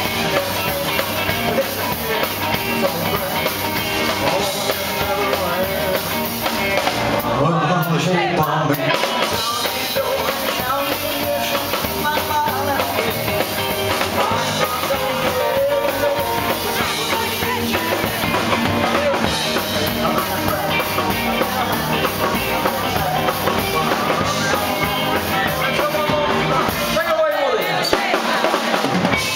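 Live rock and roll band playing: a man singing over electric guitar and a drum kit, with a sliding drop in pitch near the end.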